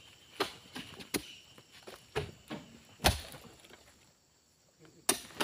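A series of irregular heavy knocks and thuds, about six in all, the loudest about three seconds in.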